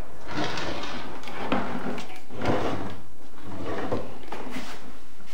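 Bathroom vanity drawers being pulled open and pushed shut by hand several times, each a short sliding rumble.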